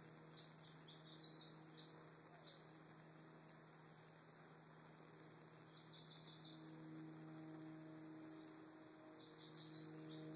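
Near silence: a faint steady hum that grows a little stronger in the second half, with a few short bursts of faint high chirping.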